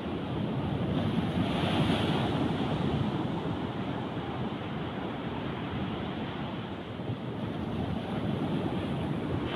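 Surf breaking on a sand and rock beach, a steady roar with one swell about two seconds in, mixed with wind buffeting the microphone. No cattle calls are heard.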